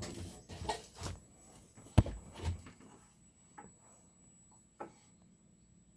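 Hands working in a boat's engine space: scuffing and rubbing, a sharp knock about two seconds in and a duller thump just after, then a few faint clicks.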